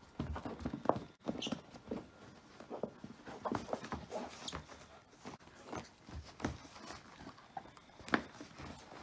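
Belgian Shepherd Groenendael puppy chewing and playing with a toy: irregular short knocks, clicks and scuffs.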